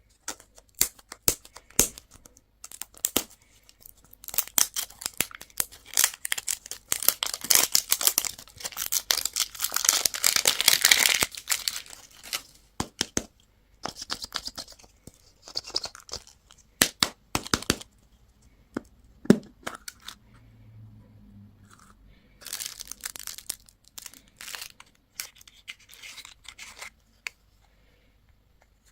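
Plastic candy and toy packaging being torn open and crinkled by hand, with sharp clicks and taps. A dense stretch of crackling wrapper runs for several seconds early on, then gives way to scattered clicks and short crinkles.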